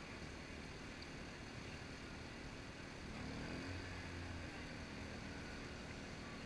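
Steady low outdoor rumble, with a low engine drone that swells and rises slightly in pitch from about three seconds in.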